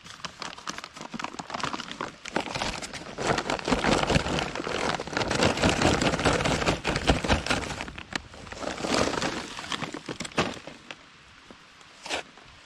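Charcoal briquettes poured out of their bag into a small fire pit: a dense clattering rattle of many small hard lumps together with crinkling of the bag. It builds after a couple of seconds, runs for several seconds, and tails off into a few scattered clicks.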